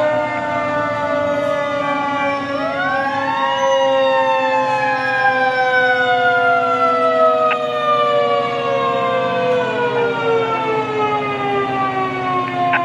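Fire engine sirens slowly winding down in long falling wails; about two and a half seconds in, a second siren winds up quickly and then slowly falls in pitch. A steady low engine drone runs underneath.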